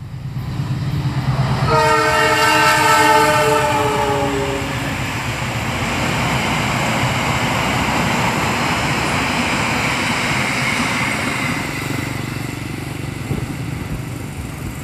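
Argo Wilis express train passing at speed. Its locomotive horn sounds for about three seconds, starting about two seconds in and dropping slightly in pitch, over the rush and rumble of the coaches going by, which eases a little near the end.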